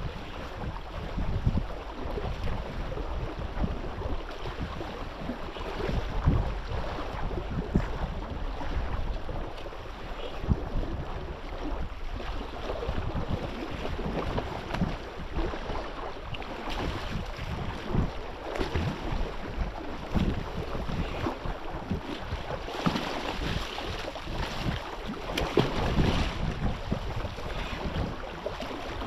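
Wind buffeting the microphone in irregular gusts over water sloshing and lapping.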